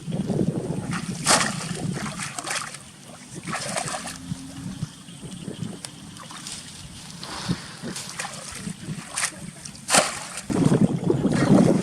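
Water splashing and sloshing in a handful of separate short splashes, as from hands or a body moving in shallow water while catching fish by hand. A heavy wind rumble on the microphone comes back near the end.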